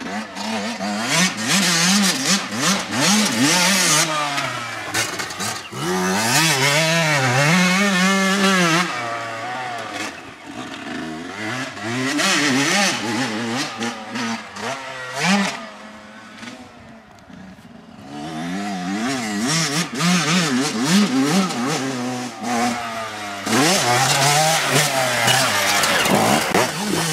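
Motocross dirt bike engines revving hard, the pitch rising and falling again and again with throttle and gear changes. The sound drops away for a few seconds past the middle, then the engine comes back loud near the end.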